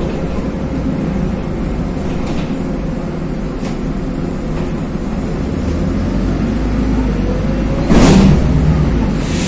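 Running noise inside a LiAZ 5292.21 city bus under way: a steady low engine drone with road noise, a faint whine that rises slowly in pitch, and one brief loud thump about eight seconds in.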